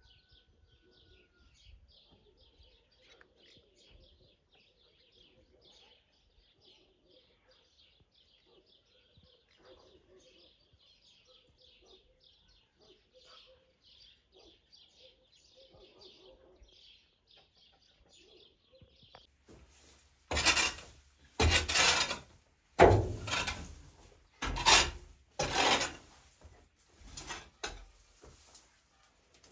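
Small birds twittering faintly for most of the first twenty seconds. Then a series of loud scraping strokes, roughly a second apart, as a long-handled tool rakes dry straw across a barn floor; the last strokes are quieter.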